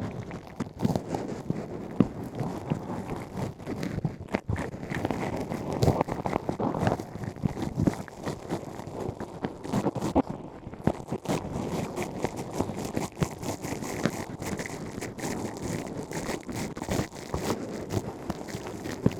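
ASMR ear cleaning: a tool scratching and crackling in an ear canal right at the microphone, with frequent small clicks throughout.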